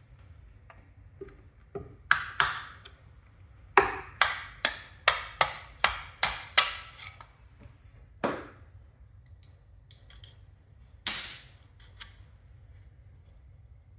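Hammer blows: a couple of strikes, then a run of about eight quick blows, then a few single strikes.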